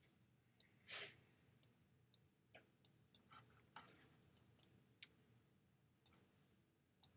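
Faint, irregular computer mouse clicks, about a dozen, the sharpest about five seconds in, with a short soft exhale about one second in.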